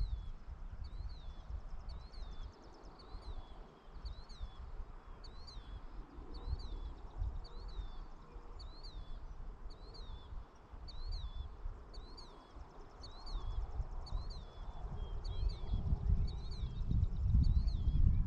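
A bird repeating a short rising-and-falling chirp about once a second, over an uneven low rumble that swells near the end.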